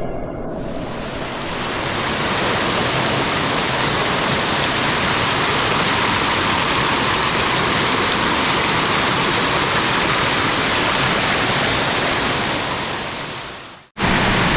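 Rushing water of a clear mountain stream: a steady, even hiss that fades out near the end.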